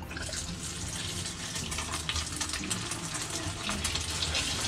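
Egg-battered chicken thigh pieces sizzling and crackling in a pot of hot oil as they are deep-fried; the hiss starts suddenly as the first piece goes in and then holds steady.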